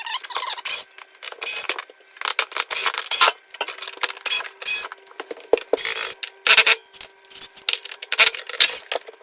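Screwdriver backing small screws out of an oven door's sheet-metal panels: irregular clicks, scrapes and squeaks of metal on metal.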